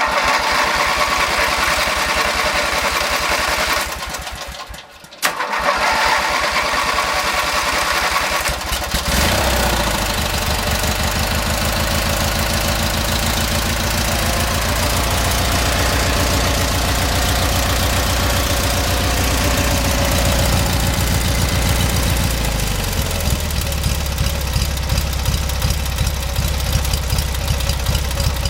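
Briggs & Stratton 16 hp 656 cc opposed-twin lawn tractor engine being cranked by its electric starter, a pause, then cranked again until it catches about nine seconds in and runs steadily. This is its first start after new head gaskets and spark plugs. Its speed drops about two-thirds of the way through.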